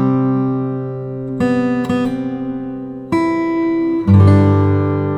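Background music: an acoustic guitar strumming chords that ring on, with a new chord every second or so.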